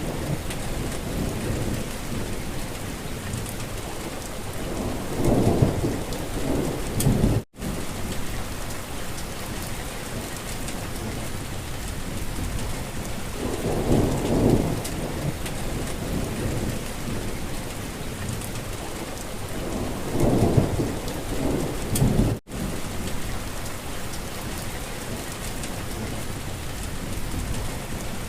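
Steady, fairly heavy rain falling, with deep rumbles that swell and fade three or four times. Twice the sound cuts out to silence for a split second, the way a looped recording does at its splice.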